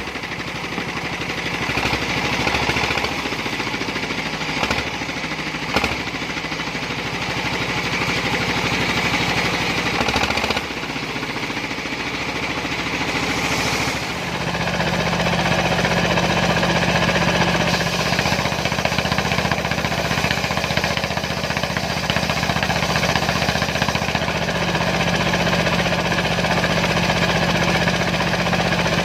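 Single-cylinder Dongfeng diesel engine running a homemade circular sawmill, with a knocking beat. About halfway through the sound settles into a steadier, slightly louder drone.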